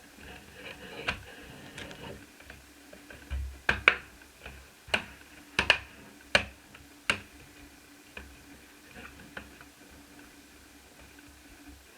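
Sharp clicks and taps of laptop parts being handled and set down, a quick run of them in the middle and a few lighter ticks either side.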